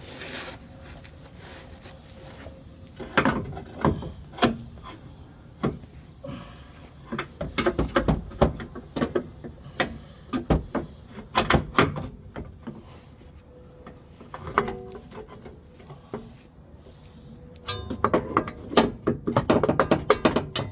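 Irregular metallic clanks and knocks of hand tools against the Chevy HHR's lower control arm and suspension parts as the stuck, broken arm is worked loose, with a fast run of clicking and rattling near the end.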